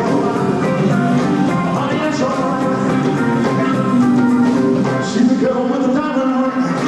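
Live rock and roll band playing a song, with singing.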